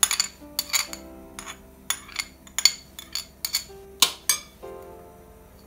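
Metal cutlery scraping and clinking against a small porcelain saucer and a glass bowl, about a dozen sharp clinks at an uneven pace, several leaving a short ringing tone.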